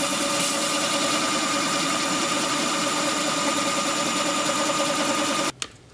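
Braun Multiquick 5 food processor motor running steadily with an even hum while it whips egg whites, then switched off abruptly near the end.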